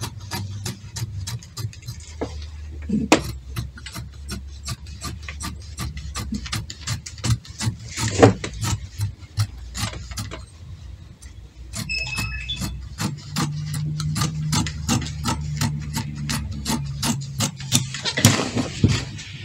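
Fabric scissors snipping through cloth, a steady run of sharp clicks about three or four a second, over a steady low hum.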